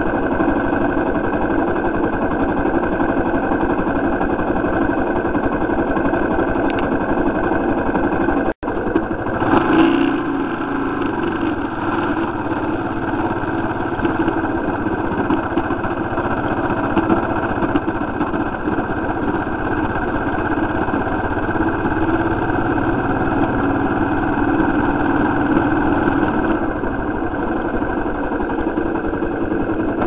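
Motorcycle engine running steadily. The sound cuts out for an instant about eight and a half seconds in, then swells briefly.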